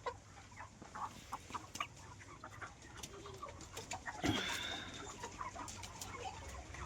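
Caged chickens clucking, with scattered short clicks and taps and one louder call about four seconds in.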